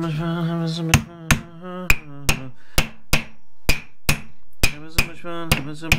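Hammer blows on a steel Dana 30 differential carrier clamped in a vise: about a dozen sharp metallic strikes, roughly two a second, each ringing briefly, starting about a second in. A sustained tone with a wavering pitch runs underneath, fading out in the middle and returning near the end.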